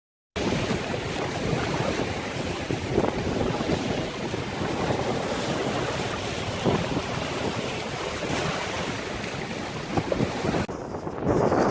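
Storm wind gusting hard across the microphone with waves surging and breaking on the shore. It starts abruptly, and about ten and a half seconds in the sound changes at once to a duller, heavier wash.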